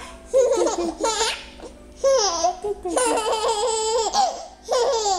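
A five-month-old baby laughing in about four high-pitched bursts, some with rapid pulsing giggles.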